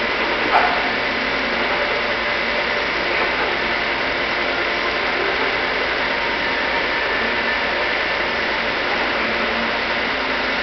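Machine tool running steadily in a machine shop, a constant noise with a thin steady whine, and a brief knock about half a second in.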